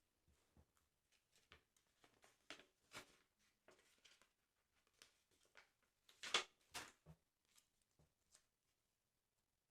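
Soft, scattered paper rustles and light taps from handling a paper sticker album, with the loudest pair about six seconds in.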